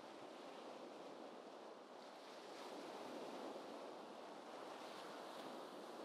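Gentle ocean waves, a faint steady rush of surf that swells slightly about halfway through.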